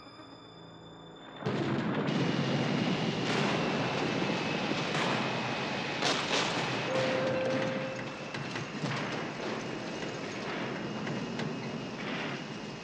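Storm sound effects for an airliner in flight: heavy rain and sharp thunder cracks that start suddenly about a second and a half in, over the steady drone of jet engines with a faint high whine. The storm eases toward the end.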